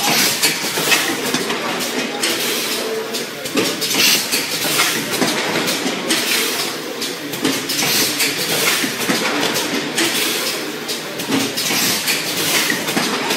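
Automatic blister-card packaging machine for batteries, with high-frequency welding, running: a steady metallic clatter of rapid, irregular clicks and knocks from its feeders, indexing trays and press stations.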